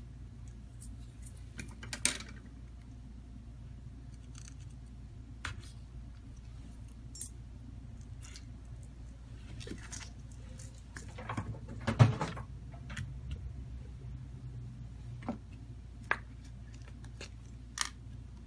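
Small clicks, taps and light clatter of smartphone parts being handled on a silicone repair mat, with a louder clatter about twelve seconds in, over a steady low hum.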